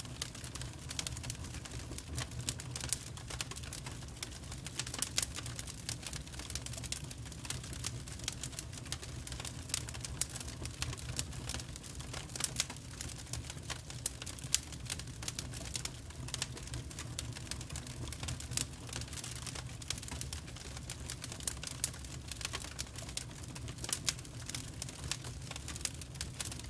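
Wood fire crackling: burning firewood logs giving off a steady stream of irregular snaps and pops over a low rumble.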